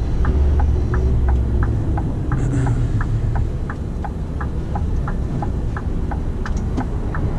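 Turn-signal ticking, about three clicks a second, inside a Scania P280 truck cab during a lane change, over the low steady drone of the truck's diesel engine.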